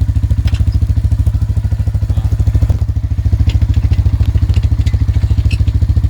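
Arctic Cat four-wheeler engine idling with a steady, fast, low pulsing beat, and a few light metallic clicks over it.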